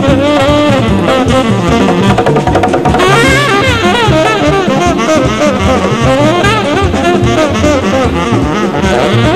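Alto saxophone playing a lead melody backed by a jazz big band with bass and drums. The sax line slides and bends in pitch, most markedly from about three seconds in.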